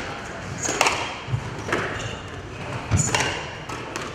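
Squash rally: several sharp hits of the ball off rackets and the court walls, with a few short squeaks of the players' shoes on the wooden floor and some low thuds.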